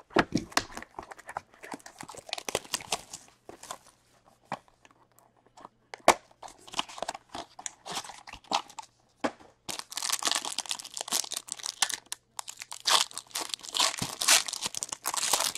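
A small cardboard hockey-card hobby box being opened by hand, with scattered clicks and rustles, then a foil card pack crinkling and tearing open, the crinkling dense and loudest in the second half.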